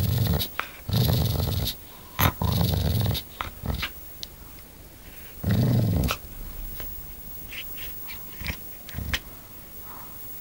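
Australian cattle dog (blue heeler) growling in short rumbling bursts, most of them in the first six seconds, with a few sharp clicks between.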